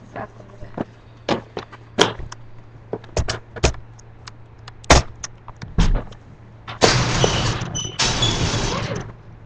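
Scattered knocks and clunks of the webcam being handled and moved, then from about seven seconds a loud, steady rushing noise that breaks off briefly near eight seconds.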